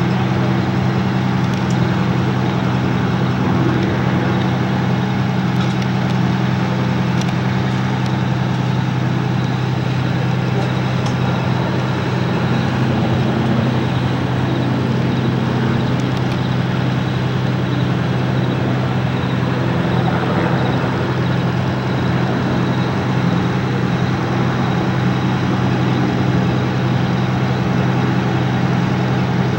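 Steady low mechanical hum, unchanging throughout, with a hiss of noise over it.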